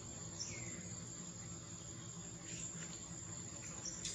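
Faint ambience of a steady, high-pitched insect drone, with a brief falling chirp about half a second in and a few short clicks.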